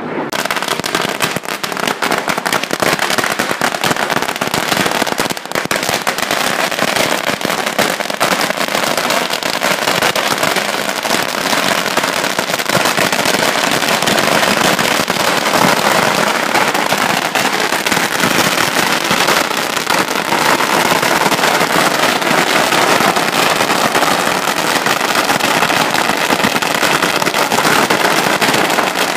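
Long strings of small firecrackers going off on the ground: a loud, dense, unbroken crackle of rapid bangs.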